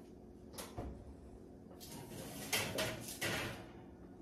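Kitchen oven door being opened and a tray of baked cookies being taken out: a couple of sharp clicks about half a second in, then three louder noisy swishes in the second half.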